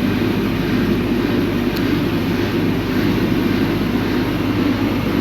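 A steady, unbroken low rumbling drone that does not change.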